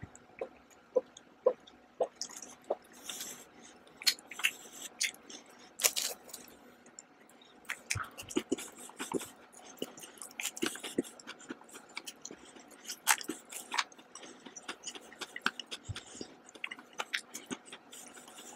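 Close-miked gulping from a drink, about two swallows a second, for the first few seconds, then wet chewing and mouth clicks as chocolate candy is eaten.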